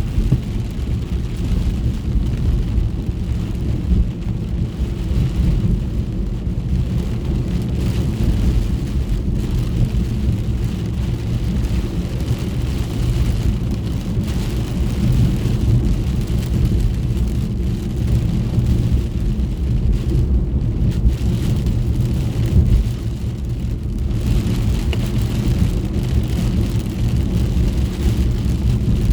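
Rain on a moving car, heard from inside the cabin over the steady low rumble of the tyres and engine, with a constant hiss of wet road and rain on the body.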